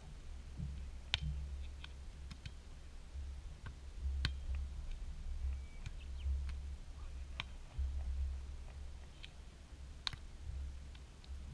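Hands striking a beach volleyball during a rally: sharp slaps, a jump serve about a second in, then hits near four, seven and ten seconds, with fainter contacts between. A low rumble of wind on the microphone runs underneath.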